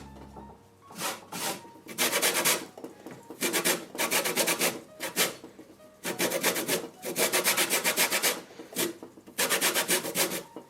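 A lemon being grated for zest: quick rasping strokes of the peel over the grater, in about five runs with short pauses between, as the lemon is turned and worked around.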